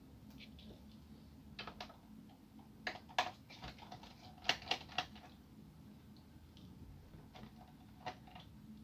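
Scattered light clicks and taps of a screwdriver and small screws against a laptop's plastic case during disassembly, with a cluster of three sharper clicks about halfway through.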